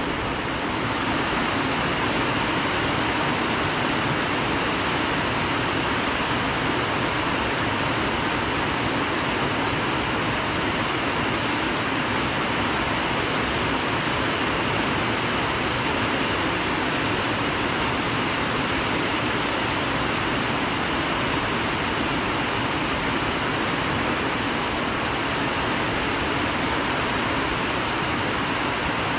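Heavy rain pouring down in a steady, unbroken wash.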